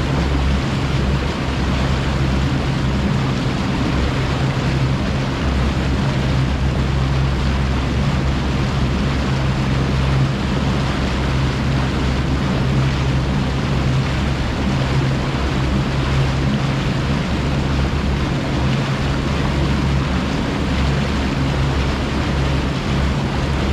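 Bass boat's outboard motor running steadily at cruising speed, a low engine drone under rushing wind and water noise.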